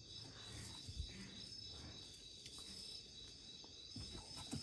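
Night insects chirping steadily in the background, a constant high trill, with a couple of faint knocks from handling the plants.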